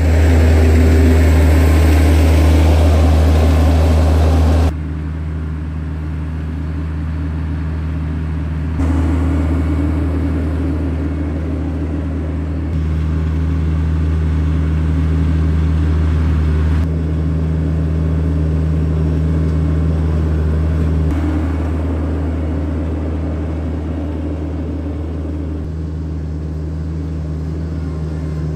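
Compact cab tractor's engine running at a steady pitch with a low drone. It is loudest for the first few seconds, then drops abruptly and shifts in level in sudden steps every few seconds.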